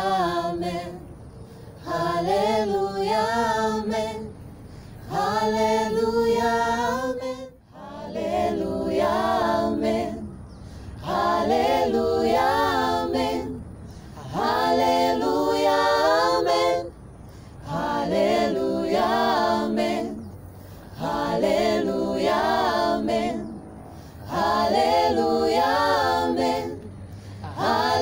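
Small mixed group of young men and women singing a Swahili worship song a cappella in harmony, with no instruments. The singing comes in phrases a few seconds long, with short breaks for breath between them.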